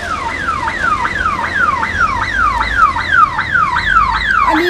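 Ambulance siren sounding a fast, steady cycle of falling sweeps, about three a second, each dropping from a high pitch to a lower one.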